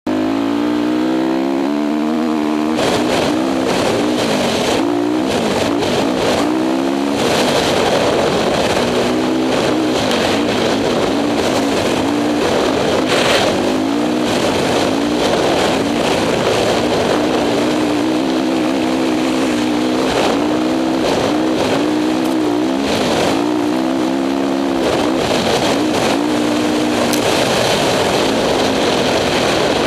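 Honda CRF450 single-cylinder four-stroke dirt bike engine under way in sand, revving up and down over and over as the rider works the throttle and gears. Wind rushes over the microphone throughout.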